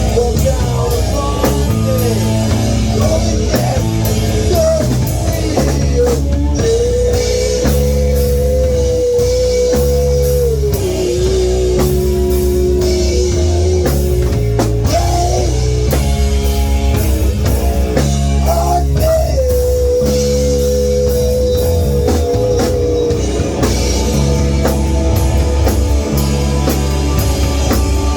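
A rock band playing an instrumental passage with drum kit and bass under a lead electric guitar. The guitar holds long sustained notes with slides and bends between them.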